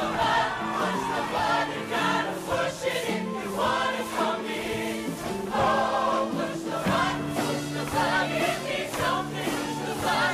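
Show choir singing in full chorus over instrumental backing, with held bass notes under the voices.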